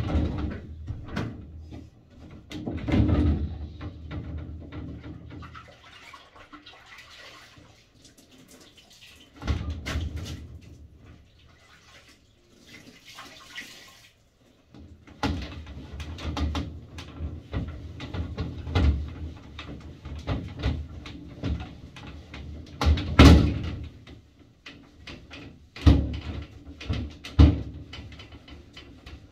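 Irregular knocks, bumps and rustling of someone handling things and moving about in a glass shower cubicle in a tiled bathroom, with a loud knock about two thirds of the way through and two sharper ones near the end.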